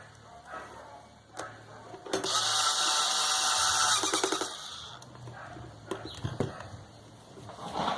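A small motor-driven hand tool runs in one burst of about two and a half seconds, starting about two seconds in, among scattered handling knocks and clicks of workbench work.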